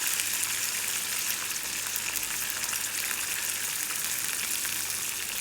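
Tempering (vaghar) for dhokla sizzling steadily in a pan: hot oil with red and green chillies, curry leaves and sesame seeds frying, with many fine crackles.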